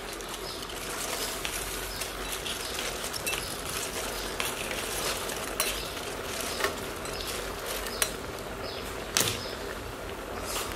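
Meat and vegetables sizzling in a metal pot as a basket of cut cabbage is tipped in on top, with a few sharp knocks. A faint high chirp repeats about twice a second in the background.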